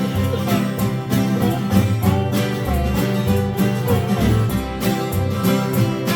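Band playing an instrumental break between the sung lines of a song.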